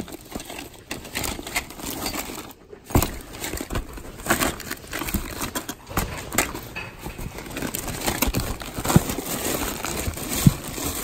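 Hands rummaging through a packed cardboard box of odds and ends: plastic bags crinkling and rustling while items shuffle and knock together in short, irregular clicks and bumps.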